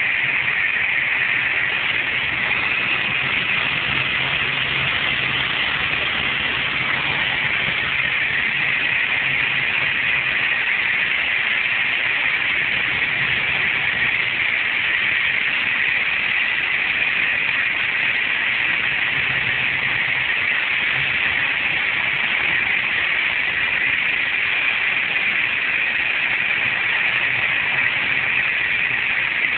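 Steady drone of a Grob light aircraft's piston engine and propeller, heard inside the cockpit with air and cabin noise over it, on final approach to land.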